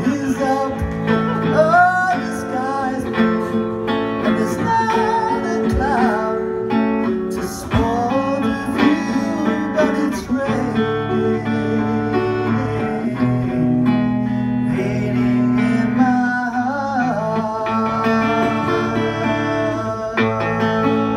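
Live band music: electric guitar chords with drums and a singing voice carrying the melody.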